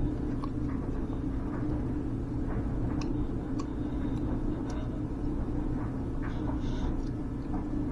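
Steady machine hum with a low rumble, with a few faint clicks and taps scattered through it.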